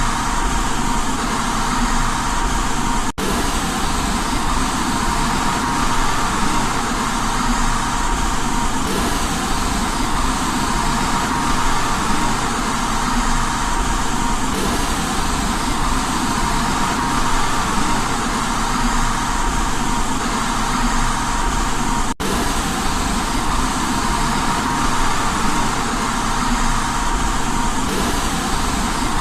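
Steady white noise for baby sleep: an even hiss with a faint steady tone running through it. It drops out for a split second twice.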